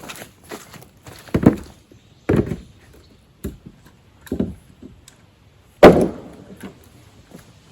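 A handful of irregular heavy thumps and knocks, as of objects being handled and set down, the loudest about six seconds in.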